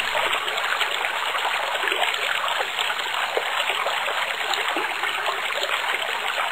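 Flowing water of a stream, a steady, even rush.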